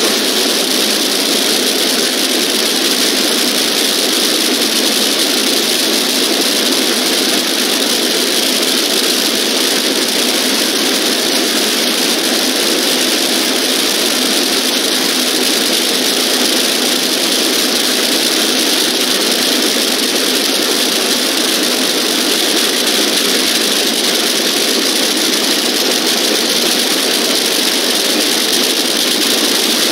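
Drag-racing funny car engines running at a steady idle, a loud continuous harsh noise with no revving.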